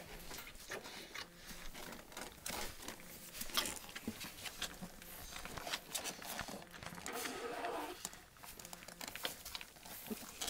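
Four-week-old bullmastiff puppies eating together from one bowl: a steady, irregular run of wet lapping, chewing and smacking clicks.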